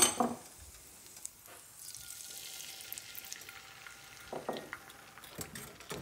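Beaten eggs poured into hot bacon grease in a cast-iron skillet, sizzling faintly as they set. A sharp clink comes right at the start, and a few short knocks come near the end.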